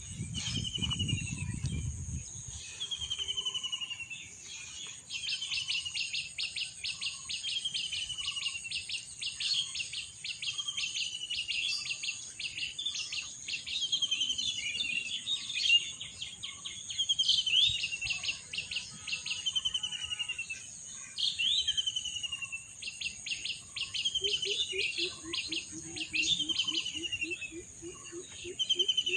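Birds singing: one repeats a short falling whistle about every second and a half, while others give bursts of rapid chattering trills, over a steady high insect drone. A low splashing sounds in the first couple of seconds, and a run of low quick notes comes in near the end.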